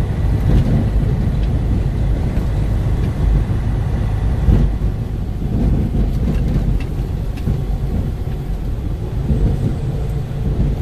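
Truck engine and drivetrain rumbling in the cab as the truck moves slowly along a snowy road, with a few light knocks and rattles.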